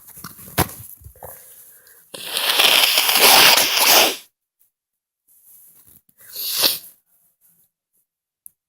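A person sneezing loudly: one long, noisy blast about two seconds in, then a shorter, quieter burst a couple of seconds later.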